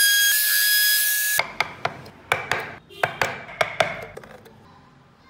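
Compact trim router running with a steady high whine as it cuts into the wooden body; it cuts off suddenly about a second and a half in. Then about nine sharp, irregular taps of a small hand chisel cutting into wood, dying away near the end.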